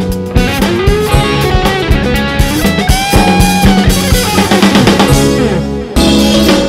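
Rock band playing with electric guitars and a drum kit. About six seconds in, the music changes abruptly to a different piece.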